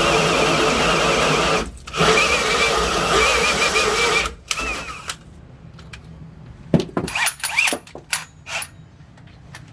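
Power drill driving a 2 1/8 inch hole saw through a wooden slab door, cutting steadily with a wavering whine, pausing briefly twice, then stopping about five seconds in. Light clicks and knocks of handling follow.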